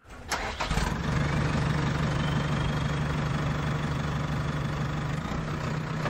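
A vehicle engine starting up and settling into a steady idle.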